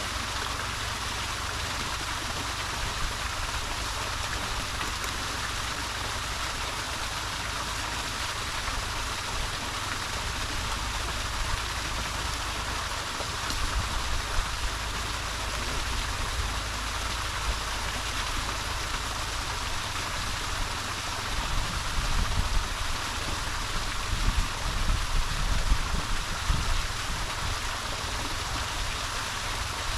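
Mountain stream rushing over rocks, a steady hiss of flowing water, with irregular low rumbles in the second half.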